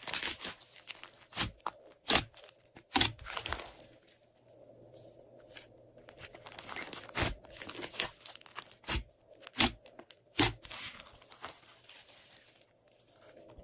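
Glossy slime being squished and mixed by hand: irregular sharp pops between stretches of crackling.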